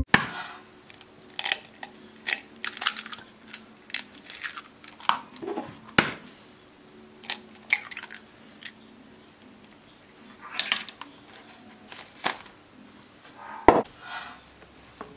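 Eggs being cracked into a glass bowl: sharp taps and crunching of shell, with scattered small clicks and knocks of handling, and a louder knock near the end.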